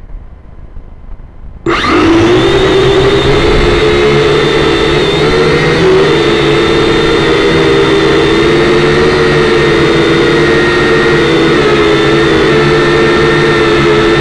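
Kyosho Quattro X EYE toy quadcopter's four electric motors and propellers starting up suddenly about two seconds in, then a loud steady buzzing whine as it lifts off and flies, the pitch wavering slightly with throttle. Heard from the quadcopter's own onboard camera, right beside the rotors.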